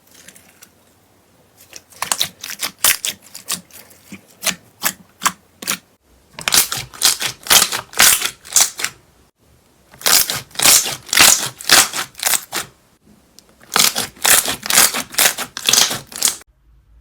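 Slime being pressed and squeezed by hand, giving runs of quick crackling pops, about three a second, in four bursts with short pauses between.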